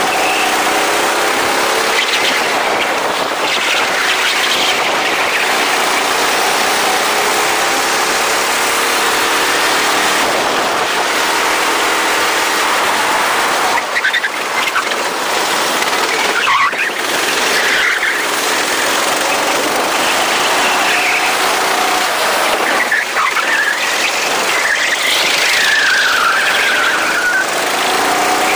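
Go-kart engines running hard on a kart track, their pitch rising and falling with a steady rush of noise, and a brief squeal near the end.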